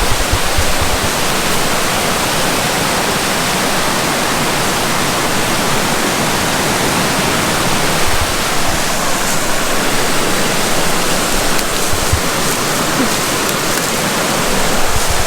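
Snowmelt-swollen stream rushing in full flood, a loud, steady wash of water.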